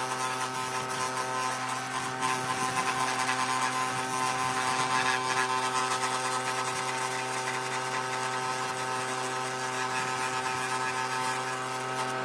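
Table saw motor running steadily: an even machine hum with no heavy cutting load on it.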